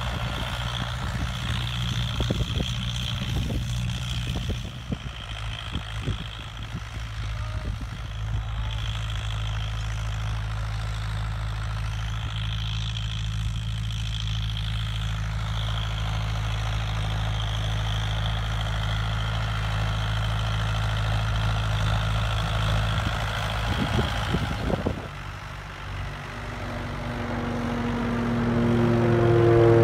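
Farm tractor's diesel engine running steadily as it pulls a disc harrow across ploughed soil. The sound dips about 25 seconds in, then builds and grows louder near the end.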